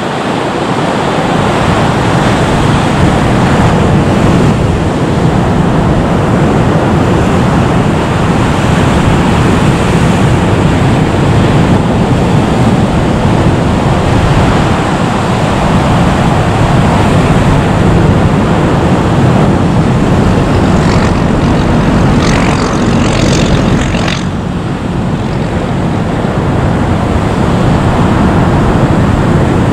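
Boeing 737 MAX 8's CFM LEAP-1B jet engines running at taxi power, a loud, steady rushing whine as the airliner taxis close by.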